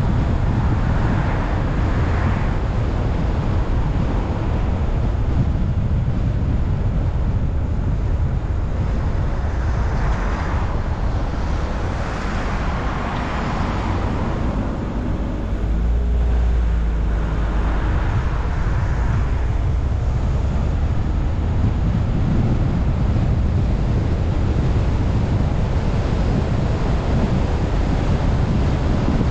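Steady rushing wind buffeting the microphone over the rumble of a car's tyres on the road, swelling and easing a few times.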